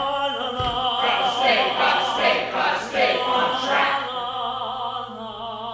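Several voices singing a musical-theatre song together, with the pitch changing quickly at first, then settling into a long held note with vibrato for the last couple of seconds.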